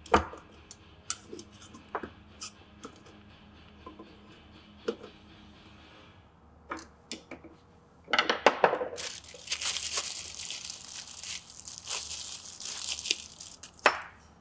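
Screwdriver scraping and clicking in the gasket groove of a Kawasaki GPz550 valve cover. From about eight seconds in comes a few seconds of dense scratchy rubbing by hand over the cover, ending in a sharp click.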